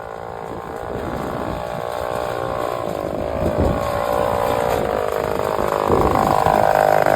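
Snap-on midi moto's small engine running as the bike is ridden, its pitch rising and falling with the throttle and growing steadily louder as it comes closer.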